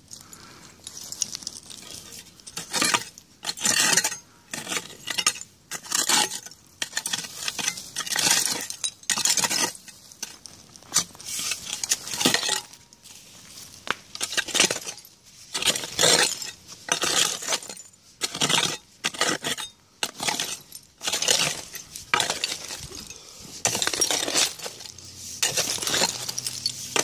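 Short-handled digging hoe chopping and scraping into stony, root-filled soil, about once a second with a short pause near the middle, each stroke a gritty scrape with clinks of metal on stones and buried glass.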